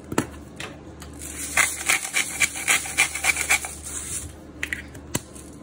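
A hand-twisted spice mill grinding over a bowl: rhythmic grinding of about five strokes a second for about two seconds, starting a second and a half in. A sharp click comes near the start and another near the end.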